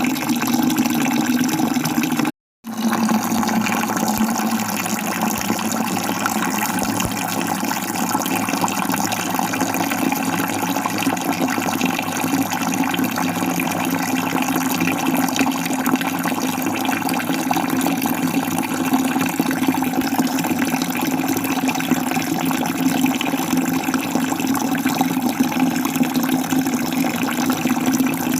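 Falling water making a steady, continuous rush. It cuts out completely for a split second about two and a half seconds in, then carries on unchanged.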